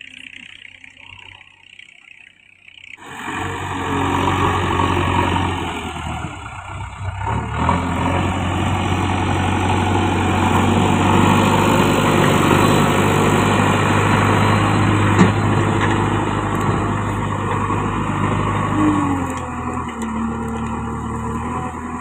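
JCB 3DX backhoe loader's diesel engine running heavily close by. It is faint for the first three seconds, then loud and steady, with a short rise in pitch near the end.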